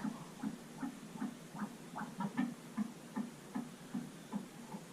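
Fetal heartbeat played through the ultrasound machine's Doppler speaker: an even run of whooshing pulses at about two and a half beats a second, a good heart rate.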